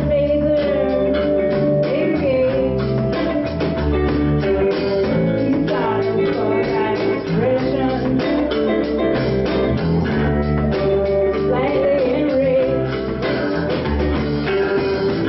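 Live band playing a song: Les Paul-style electric guitar, drum kit and flute, with a held, wavering melody line over a steady beat.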